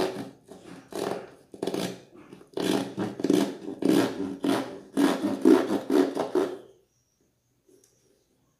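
A knife sawing back and forth through a foil-lined cardboard carton, rasping strokes about two to three a second that stop about seven seconds in.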